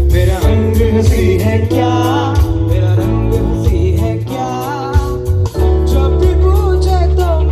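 Live unplugged band music: acoustic guitar over a heavy bass pulse, with a gliding sung melody line.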